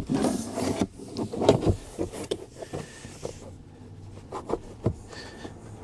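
WeatherTech floor mat being slid into the footwell, scraping against the floor for about a second, then scattered knocks and taps as it is pushed and positioned over the snap-in points.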